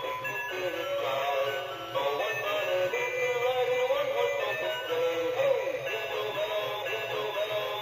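Dancing Santa novelty toy playing its Christmas song from its built-in speaker: an electronic melody with a synthesized singing voice.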